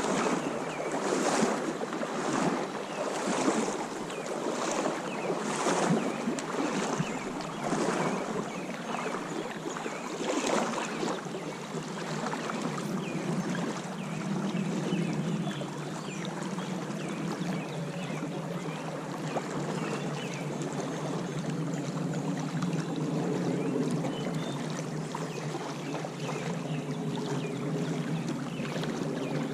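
Creek water rushing and splashing close to the microphone, with rhythmic sloshes about once a second for the first ten seconds or so, then a steadier flow.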